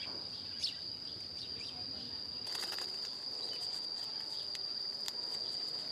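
Insects, such as crickets, keeping up a steady high-pitched drone, with a few sharp clicks and taps, a cluster of them about halfway through and another near the end.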